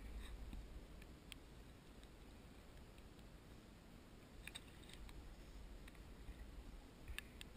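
Near silence, with a low rumble and a few faint, sharp clicks: about a second in, around four and a half seconds, and near the end.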